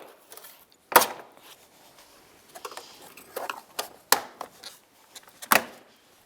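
Plastic retaining clips of a Jeep Grand Cherokee door panel snapping loose as the panel is pried off with a trim tool: three loud sharp snaps about one, four and five and a half seconds in, with smaller clicks and plastic rattles between them.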